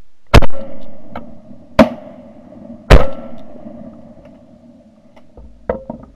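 Three shotgun shots fired at ducks overhead, about a second apart, followed by a few light clicks near the end.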